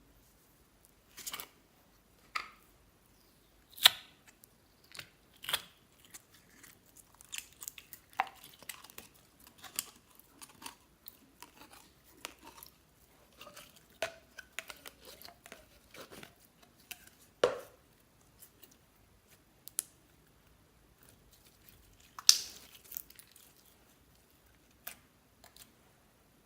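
Slime worked by hand, giving irregular sticky clicks, pops and crackles, with a few louder pops scattered through.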